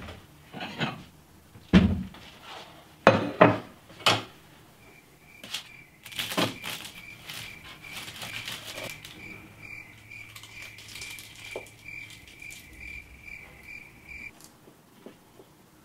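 A knife and spatula knock, scrape and clink against a baking tray and plate as a baked pastry is cut and served, with a few sharp knocks in the first four seconds. From about five seconds in, an evenly repeating high chirping like crickets runs for about nine seconds, then stops.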